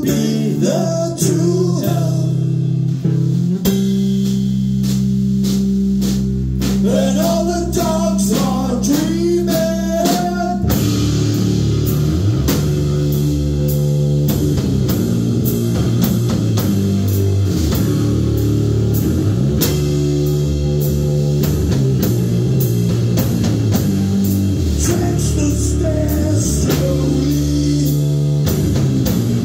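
Live rock band playing: drum kit, electric bass and a male voice singing. Held low notes with singing over them, then the full band kicks into a steady beat about ten seconds in.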